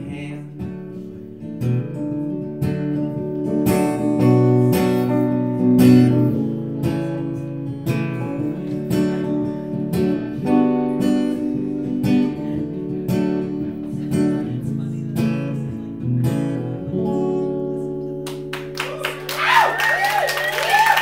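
Steel-string acoustic guitar strummed in rhythm, ending on a chord that is left ringing. Near the end the audience starts clapping and cheering.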